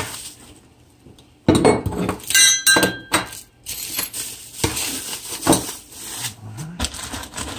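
Plastic bag and bubble wrap crinkling as a bagged chrome chain tensioner is unwrapped, with metal pieces clinking and ringing briefly about two to three seconds in.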